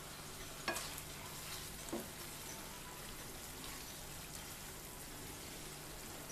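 Chepa shutki bhuna, dried fish cooked down with onion in oil and now done, sizzling faintly in a nonstick pan as a spatula stirs it. Two light clicks sound near the start, over a steady fine crackle.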